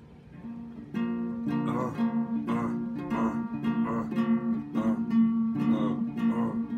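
Acoustic guitar strummed in a steady rhythm on one chord, about three strokes a second, coming in softly and turning loud about a second in.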